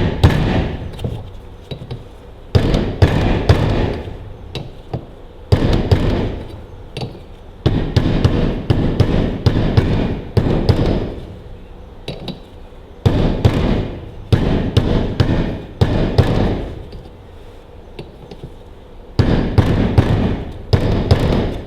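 Hammer blows knocking a new PTO shaft oil seal down into the rear housing of a Ferguson TEA20 tractor, struck in rapid runs of a second or two with short pauses between.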